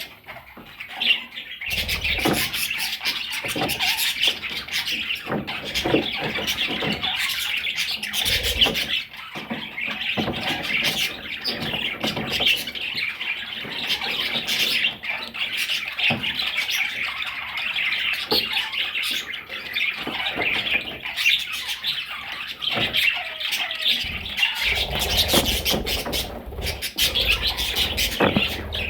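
Budgerigars chattering and warbling continuously, with squawks and scattered sharp clicks mixed in.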